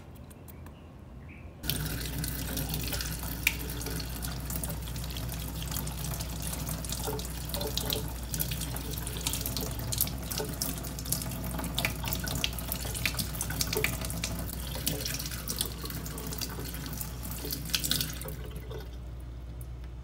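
Kitchen tap running onto cherries in a small stainless-steel mesh basket, splashing into the sink with many small splashes. The flow starts abruptly about two seconds in and stops near the end.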